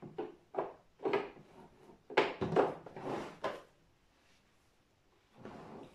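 Plastic clunks and knocks of a Lionelo ISOFIX child car seat as its recline mechanism is released and the seat shell is tipped back on its base: several sharp knocks in the first three and a half seconds, then a softer scraping noise near the end.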